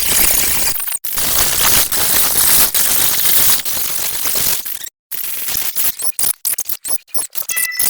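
Loud, harsh static-like noise with abrupt cutouts: a brief break about a second in, a full stop just before the midpoint, then a rapid stutter of choppy cuts and clicks in the last two seconds.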